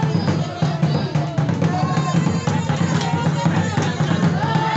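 Tchokossi dance drumming: drums played in a fast, dense rhythm, with held high notes sounding over the drums several times.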